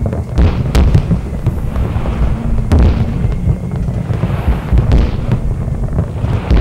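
Fireworks going off: repeated sharp bangs of bursting aerial shells over a constant low rumble.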